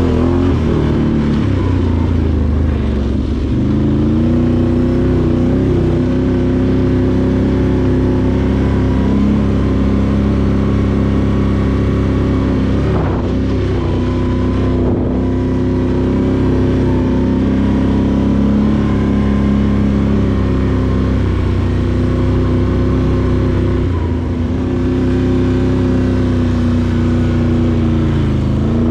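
Can-Am Outlander 850XT ATV's V-twin engine running under load while riding, its pitch dipping and climbing again several times as the throttle changes.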